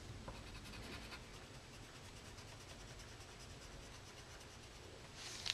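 Faint scratching of a colored pencil rubbing across paper while colouring in a drawing.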